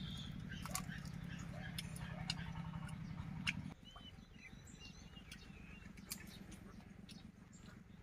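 A person chewing chicken, with small mouth clicks and smacks, while birds chirp now and then. A low steady hum underneath stops abruptly about halfway through.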